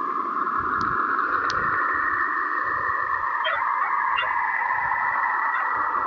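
Saturn's radio emissions converted into sound: a steady hiss with a whistling band, with two faint ticks in the first second and a half and a few short warbling chirps past the halfway point.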